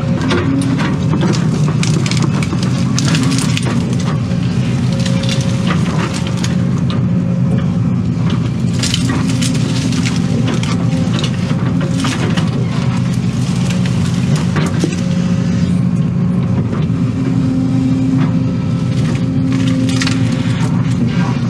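Case excavator's diesel engine running steadily, heard from inside the cab, with scattered sharp cracks and snaps as the bucket digs through dirt, roots and brush.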